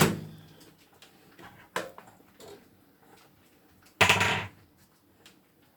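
Dish and microwave-door handling in a kitchen: a sharp knock at the start, a few light clicks, and a louder clatter lasting about half a second about four seconds in.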